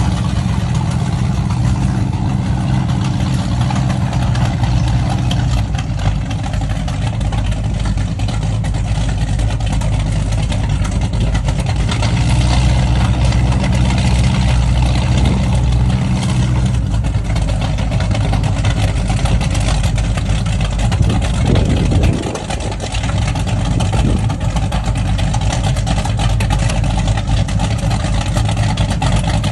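Twin 598-cubic-inch naturally aspirated Chevrolet big-block V8s of a Baja powerboat running with a deep, steady exhaust note. About three-quarters of the way through, the revs briefly dip and then climb back.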